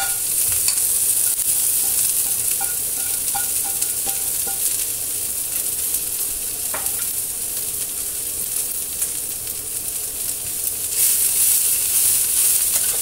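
Chopped mustard leaves, spinach and spring onion sizzling steadily in hot oil in a frying pan, with a few light ticks. About eleven seconds in, the sizzle grows louder as the greens are stirred with a spatula.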